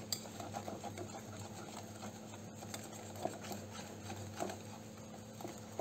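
Wire whisk beating thin cake batter in a ceramic bowl: fast, faint, uneven ticking of the wires against the bowl with wet slapping of the batter, over a low steady hum.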